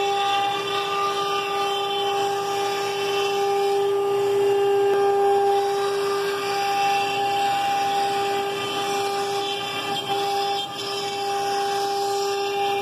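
CNC router spindle running with a steady high whine as its bit cuts through a plywood sheet, over the continuous noise of the vacuum hold-down pump.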